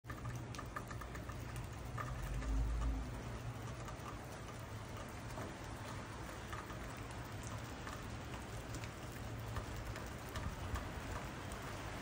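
Steady soft patter of heavy wet snow falling, with many small ticks as flakes land. A low rumble swells briefly about two to three seconds in.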